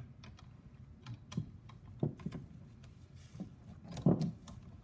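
Steel diamond saw chain clicking and clinking in light, irregular ticks as it is fed link by link around a chainsaw guide bar, with a slightly louder knock about four seconds in.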